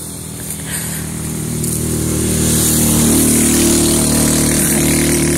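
A small petrol engine running out of sight, growing louder over the first couple of seconds and then holding steady.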